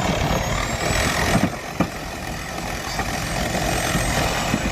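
A vehicle engine running steadily under a rumbling noise, with a few sharp knocks about a second and a half in.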